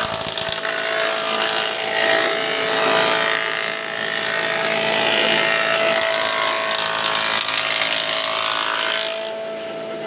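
18-inch planer running with a steady whine, and a louder rushing noise of the cutter planing wood that swells through the middle and drops away near the end.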